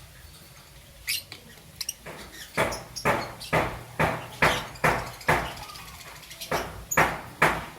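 Young peach-faced lovebird giving a run of short, harsh chirps, about two a second, starting about two seconds in.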